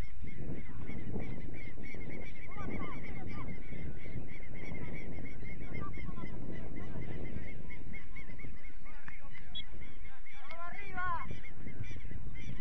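Wind rumbling on the microphone, with a bird calling in quick repeated notes, about four a second, throughout. Louder honking calls come about two and a half seconds in and again near the end.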